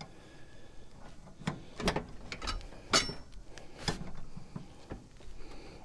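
A breaker bar and 9/16 socket clicking and knocking on a riding mower's blade bolt as it is strained to break the tight bolt loose: about five sharp metallic knocks at uneven intervals, the loudest about three seconds in.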